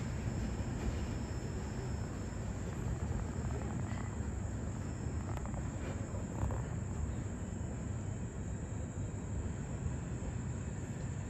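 Steady low rumble of a loaded CSX coal train's cars rolling away down the track.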